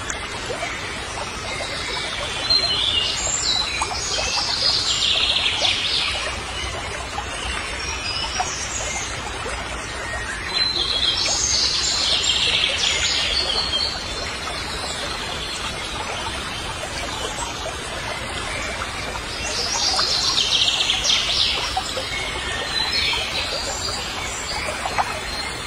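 Birds chirping in three bouts of about three to four seconds each, spaced several seconds apart, over a steady background hiss.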